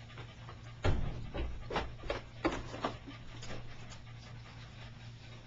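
A small dog and a raccoon play-fighting: a quick run of short, sharp yips and snaps, about ten over two and a half seconds, the first with a thump about a second in.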